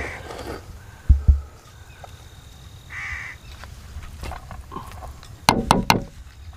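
A crow cawing twice, about three seconds apart. Two dull thumps come just after a second in, and near the end there is a quick run of sharp clinks and knocks as a serving spoon drops biryani onto a clay plate.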